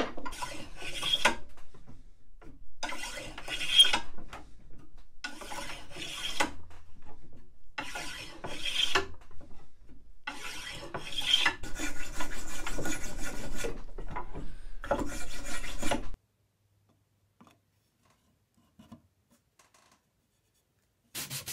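Spokeshave cutting along a wooden chair spindle held in a shave horse: a series of separate shaving strokes about every two and a half seconds, running together into longer continuous cutting about two thirds of the way in, stopping about three-quarters of the way through.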